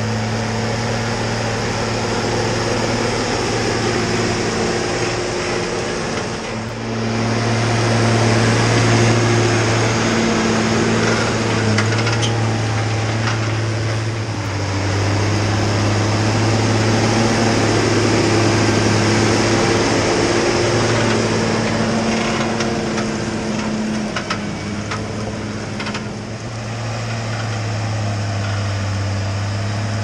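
Case Maxxum 125 tractor's diesel engine running steadily under load as it pulls a subsoiler through muddy ground. The steady drone swells and fades as the tractor passes, with a few brief dips.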